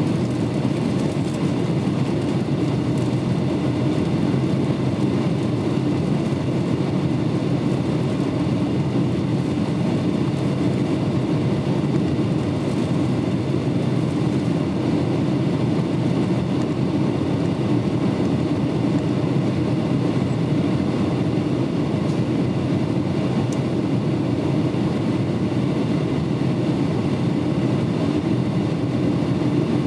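Steady engine and airflow noise of a Boeing 757 in flight on its descent, heard inside the passenger cabin: an even, unbroken rumble with faint steady tones above it.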